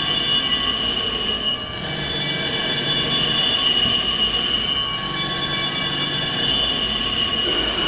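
Building fire alarm bell ringing loudly and steadily, a dense metallic ring with slight shifts in tone every few seconds. It is the slower first-stage alert ringing; faster ringing would be the signal to evacuate.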